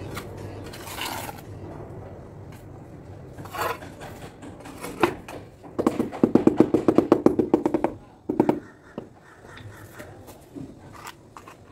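Rubber mallet knocking on a large floor tile to bed it down. A few single knocks come first, then a fast run of about seven knocks a second for two seconds, then one last knock.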